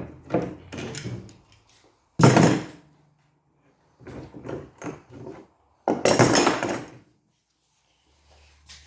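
Handling noises: knocks and two loud, noisy, scraping thumps of wood and tools, one about two seconds in and one about six seconds in, with lighter knocks between them.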